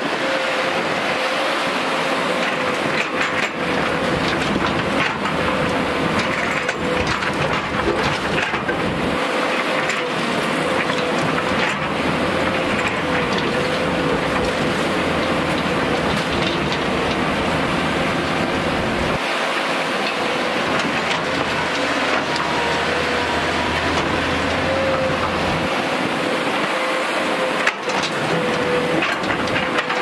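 JCB crawler excavator working: its diesel engine runs steadily with a wavering hydraulic whine, and the load on it shifts a couple of times as the boom and bucket move. The bucket scrapes through rocky soil with scattered knocks of stones.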